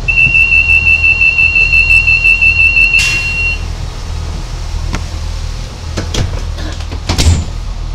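Class 143 Pacer door warning beeping rapidly on one high note for about three seconds, then a loud knock as the doors shut. A few more clunks follow near the end, over the low hum of the railbus's diesel engine.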